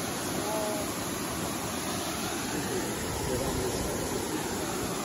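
Steady rushing noise of a large waterfall.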